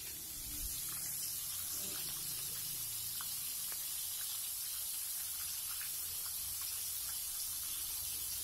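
Battered shrimp deep-frying in hot oil in a wok: a steady sizzle with scattered small crackles, slightly louder from about half a second in.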